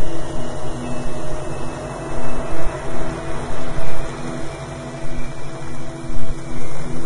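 Subliminal audio track: a dense, hiss-like noise bed with several sustained droning tones, its loudness pulsing irregularly.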